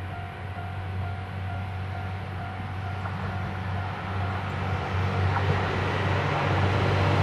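Diesel railcar approaching, its engine drone and running noise growing steadily louder.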